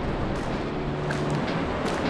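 Wind buffeting the microphone over the steady rush of surf washing up a sandy beach.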